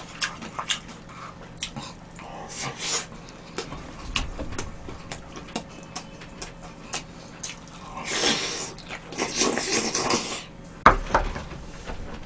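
Close-up eating sounds: metal chopsticks and a spoon clicking against a small steel bowl, with chewing, loudest in bursts about eight to ten seconds in.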